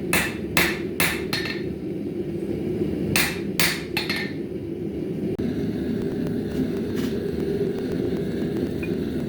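Hand hammer striking a bar of 1075 high-carbon steel on an anvil during forging: four quick ringing blows in the first second and a half, three more about three to four seconds in, then a faint one later. A steady low rushing noise runs underneath.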